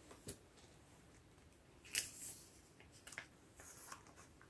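Photocards being handled and slid into plastic binder sleeve pockets: a few faint, brief rustles and taps, the clearest about two seconds in.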